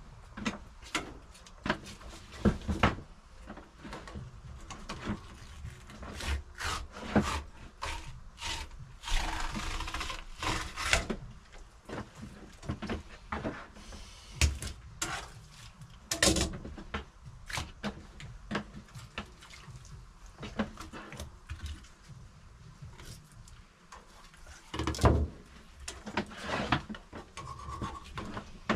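Irregular knocks and bumps with scraping and rubbing between them, including a longer stretch of scraping about ten seconds in.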